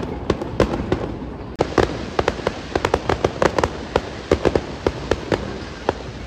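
Aerial fireworks bursting in quick succession: a dense run of sharp bangs and crackling pops, several a second.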